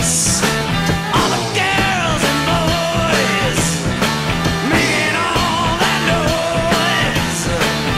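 Rock music with a singing voice or lead line over a steady beat and cymbal crashes.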